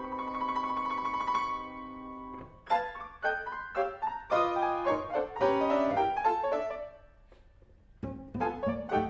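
Grand piano playing a contemporary jazz piece: a held chord that fades away, then a run of quick separate notes, a brief pause, and fuller playing with low notes coming in near the end.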